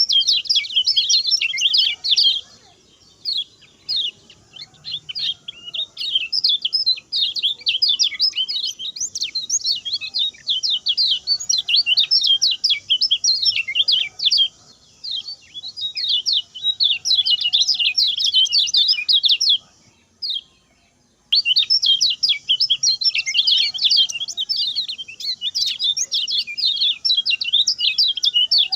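Lemon-bellied white-eye (kecial kuning) singing a fast, unbroken twittering song of rapid high chirps. It eases off briefly a few seconds in and stops for about a second around twenty seconds in.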